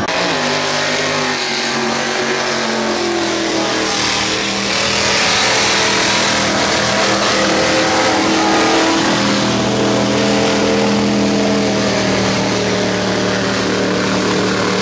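Modified mud-bog pickup truck's engine revving hard at high rpm as it powers through a deep mud pit. The revs climb over the first few seconds, ease, and climb again past halfway, with a rush of spinning tyres throwing mud.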